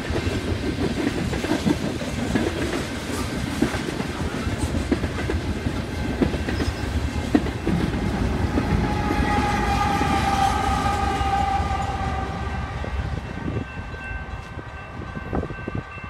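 Freight train cars rolling past, wheels clattering and rumbling on the rails. From about eight and a half seconds in, a diesel locomotive's multi-chime air horn sounds one long chord that swells and then fades near the end.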